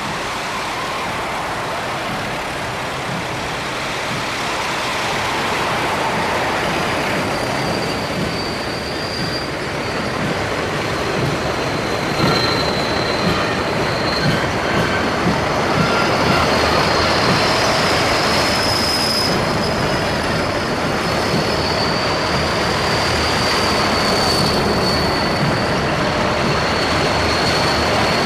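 A column of tracked armoured vehicles, self-propelled howitzers among them, driving past with engines and tracks running. A high, wavering squeal sits over the noise from about eight seconds in.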